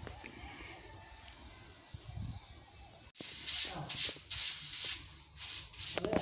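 Small birds chirping faintly. About three seconds in, a louder run of repeated scratchy rubbing noises takes over.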